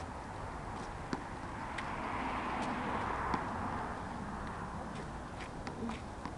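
Street traffic noise, swelling and fading as a vehicle passes by, with a few faint sharp taps scattered through.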